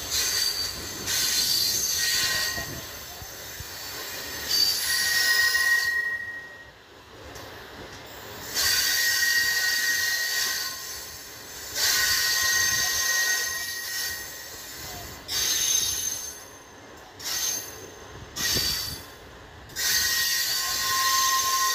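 Tezgam Express passenger coach's steel wheels squealing on the rails as the train slows into the station, a high-pitched squeal that comes and goes in stretches of a few seconds with quieter gaps between.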